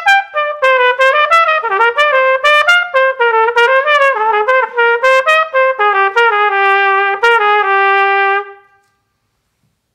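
Austin Custom Brass Doubler cornet, a two-trigger silver cornet, played solo: a quick phrase of separately tongued notes moving up and down. It ends on a held note and stops a little before the end.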